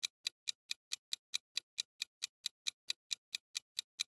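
Clock-ticking sound effect marking a quiz countdown timer: rapid, evenly spaced ticks, about four and a half a second.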